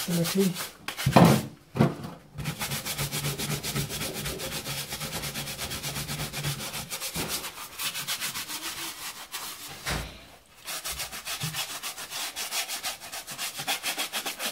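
Hand brush scrubbing a Nike trainer's fabric upper and sole rim in baking soda solution: rapid, even back-and-forth bristle strokes, about four or five a second, with a couple of louder knocks about a second in and a brief pause about two-thirds of the way through.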